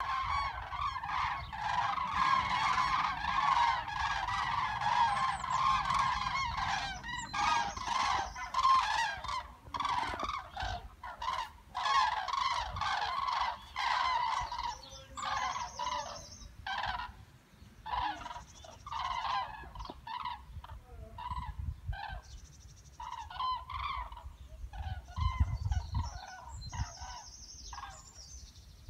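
A flock of migrating common cranes calling overhead: many bugling calls overlapping in a dense chorus for the first several seconds, then thinning to scattered bouts of calls. A brief low rumble comes about three-quarters of the way through.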